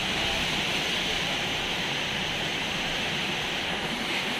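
Steady, even hiss of rain falling, with no tool or engine sound over it.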